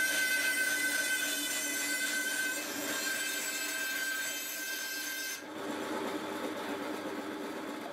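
Bandsaw cutting a reclaimed pine board along a curve: a steady high whine and hiss from the blade in the wood, which drops away suddenly about five seconds in, leaving the saw's lower running hum.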